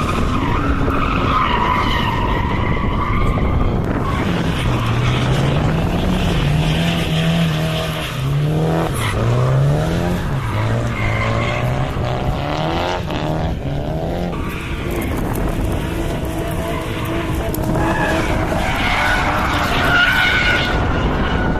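A drift car sliding through a corner, its rear tyres skidding and squealing. The engine revs up and down repeatedly in the middle as the driver works the throttle through the slide.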